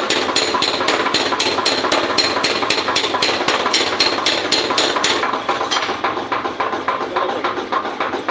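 Hammer blows on metal in a fast, even rhythm of about four or five strokes a second, each with a bright ringing tone. About five seconds in, the blows become softer and less regular.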